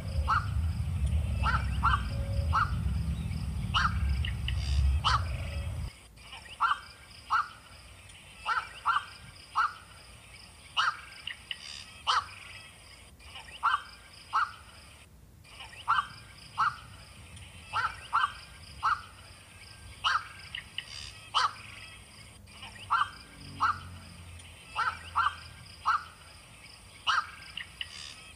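Short, sharp animal calls repeated roughly once a second, often in quick pairs or threes, in a steady series. A low rumble runs under the first six seconds and then cuts off suddenly.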